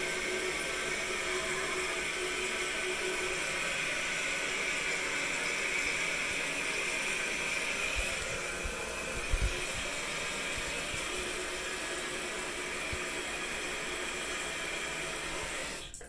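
Jacuzzi Lyndsey toilet's float-cup fill valve refilling the tank after a flush: a steady hiss of running water with a faint whistle, cutting off sharply near the end as the tank fills and the valve shuts. A few soft bumps come about halfway through.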